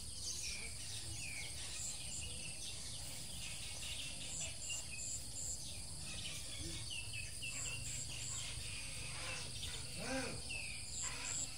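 Outdoor ambience: a steady high insect drone, likely crickets, with many short bird chirps scattered throughout, and one brief lower call about ten seconds in.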